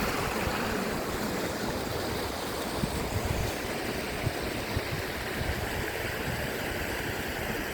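French bulldog snoring: a steady rushing noise with faint irregular low rumbling.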